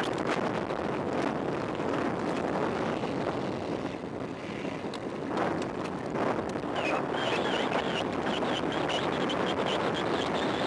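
Wind rushing over the microphone and tyre noise of a mountain bike descending a paved road, with scattered clicks and rattles as it runs over cracked pavement. From about seven seconds in, a high wavering squeal comes and goes as the bike's brakes are applied for a bend.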